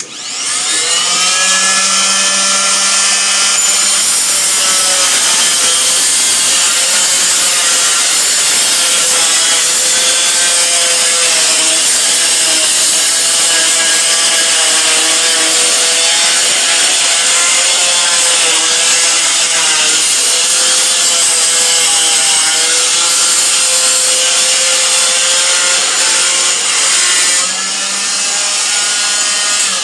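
Oscillating multi-tool running and sawing. Its motor comes up to speed in about a second, then holds a loud, steady buzz whose pitch wavers slightly as the blade works. The sound drops a little near the end before the tool stops.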